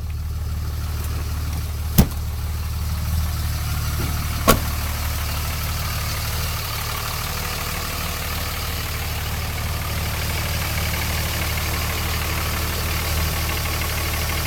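A Cummins turbo-diesel in a 2004 Dodge Ram 3500 idling steadily. Two sharp knocks sound about two and four and a half seconds in.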